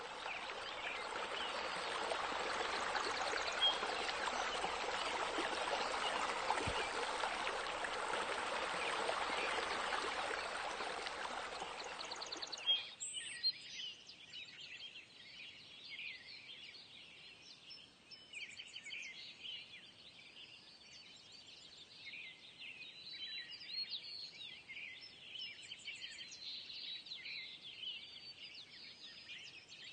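Steady rush of splashing water from the pool's water features for about the first twelve seconds, cutting off abruptly. Then birds chirping and singing softly for the rest.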